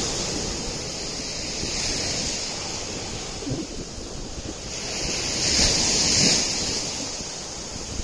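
Small waves breaking and washing up a pebble beach, the wash swelling loudest about six seconds in, with wind buffeting the microphone.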